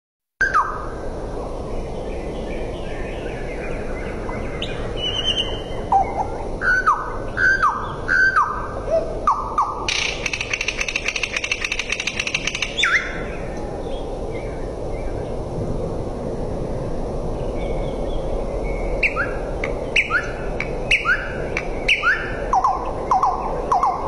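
Nightingale singing: loud whistled notes that slide downward, repeated about two a second in phrases, with a dry rapid rattle lasting about three seconds midway, all over a steady background hiss.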